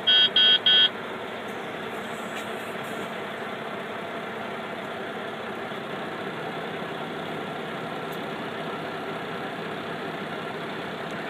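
Three short electronic beeps from the dashboard in the first second, then the 2013 Mack CHU613's diesel engine idling steadily after a warm start, heard from inside the cab.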